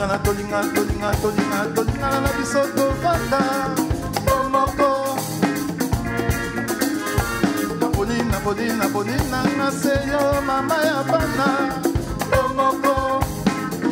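Band music in a dance rhythm, a drum kit keeping a steady beat under melodic lines, in the style of Congolese rumba.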